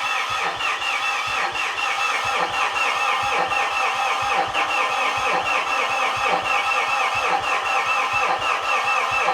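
Starter motor slowly cranking the four-cylinder 4P10 common-rail diesel of a Mitsubishi Fuso FG, with an even beat of about three compression pulses a second, and the engine does not catch. Smoke is coming from the freshly fitted number two injector, which the owner thinks is loose or not sealing.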